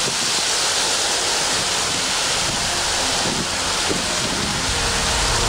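Steady hiss of a heavy downpour of rain and hail falling onto grass and wet ground. Music fades in near the end.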